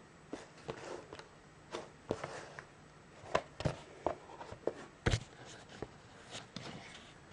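Hands handling and turning over a DVD box-set case: irregular taps, clicks and scuffs of fingers and the case, with a couple of sharper knocks about three and a half and five seconds in.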